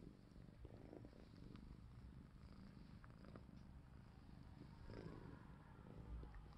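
Faint, steady purring of a Scottish cat while the two cats groom each other, with a few small clicks.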